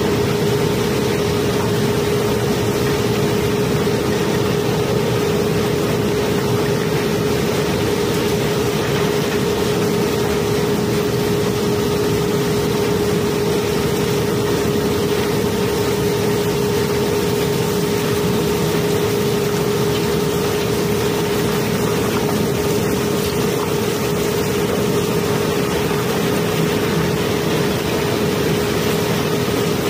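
Barge unloading machinery running with a steady, unchanging hum, over a dense continuous rush and rattle of cobblestones flowing down through the slot in the hold floor.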